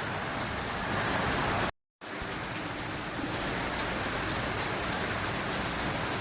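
Steady rain falling, an even hiss of drops on surfaces. The sound cuts out completely for a moment about two seconds in, then resumes.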